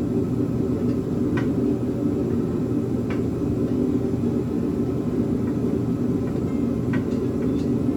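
A steady low rumble of background noise runs throughout. A few faint, light metal clicks come through it, about one and a half, three and seven seconds in, as a header bolt is worked by hand against the exhaust header.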